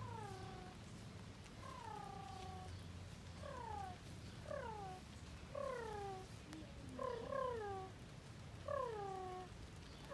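A kitten meowing over and over, about ten short calls that fall in pitch, roughly one a second.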